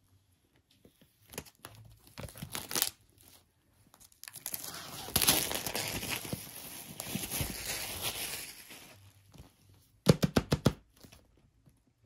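Thin plastic shrink-wrap being torn and peeled off a laptop box, crinkling in short bursts and then in a longer stretch in the middle. A short, loud burst of sharp sounds comes near the end.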